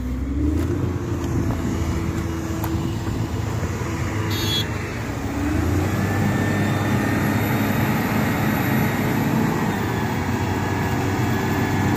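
LiuGong motor grader's diesel engine running under load while the machine is stuck in loose murum soil, its note wavering a little and getting slightly louder about halfway through. A brief click a little before the middle.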